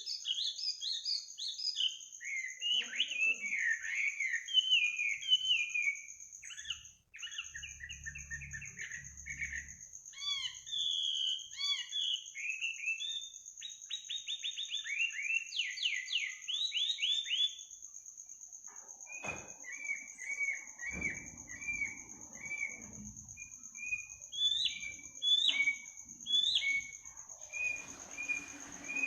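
A songbird singing fast, varied phrases of whistled notes and trills, then from about two-thirds through a run of short, evenly repeated chirps. A steady high-pitched tone runs behind it, and the sound cuts out for an instant about a quarter of the way in.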